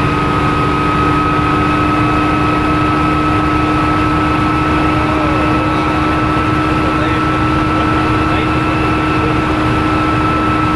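Bell OH-13 Sioux helicopter heard from inside its cockpit in flight: the piston engine and two-bladed main rotor run steadily, a constant whine over a fast, low throb.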